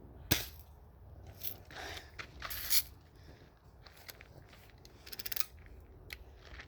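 A BB gun fires once with a sharp crack about a third of a second in, followed by scattered clicks and rustling of the gun being handled.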